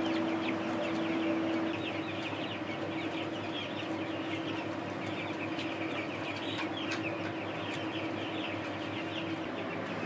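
A flock of young chicks peeping continuously, many short falling chirps overlapping, over a steady hum.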